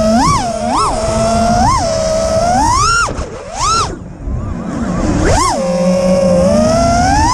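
FPV racing quadcopter's brushless motors (iFlight 2207, 1900 kV) whining, the pitch swooping up with each throttle punch and falling back, several times. Past the middle the throttle drops off and the whine nearly fades for about a second, with one short burst, before rising again.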